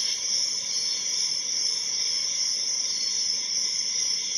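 A steady high-pitched hiss with a faint whine in it, running unchanged.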